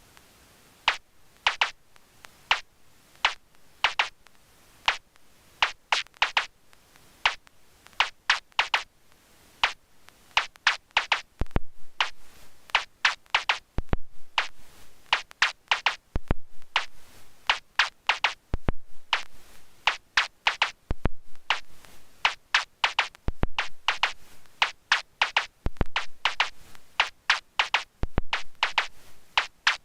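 Erica Synths Perkons HD-01 drum synthesizer playing a rhythmic pattern of short, sharp clicky percussion hits. A deep kick joins about eleven seconds in and repeats every couple of seconds.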